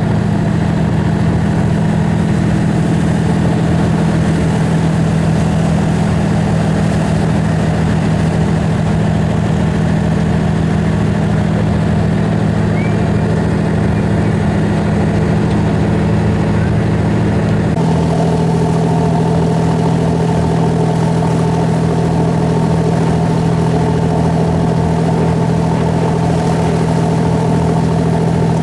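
A boat's engine running steadily. About two-thirds of the way through its note shifts slightly and stays there.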